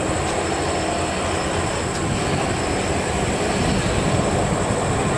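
Diesel cargo trucks passing, their engines and tyres making a steady drone that grows slightly louder near the end.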